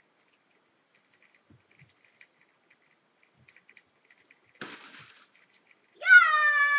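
A toddler's long, high-pitched yell or wail that starts near the end and holds at one pitch, sinking slightly. It comes after mostly quiet, with a short rustling thump a little earlier as the child pushes at an inflatable Santa.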